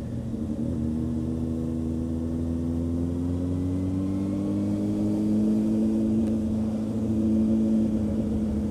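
Honda CB600F Hornet's inline-four engine running at a gentle pull, its pitch rising slowly over the first few seconds and then holding steady.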